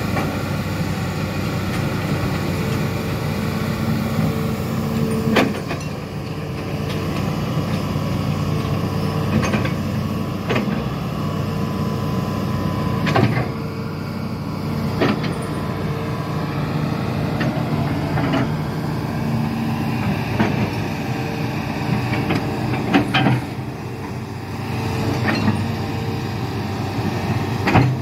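Hitachi amphibious excavator's diesel engine running steadily under load, with sharp metallic clanks every few seconds as the pontoon tracks and boom work.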